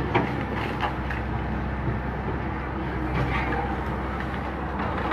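Hydraulic excavator's diesel engine running steadily, with a few sharp knocks in the first second.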